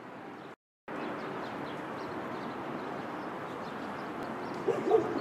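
Steady outdoor street background noise that cuts out for a moment about half a second in; near the end a stray dog gives a quick run of short barks.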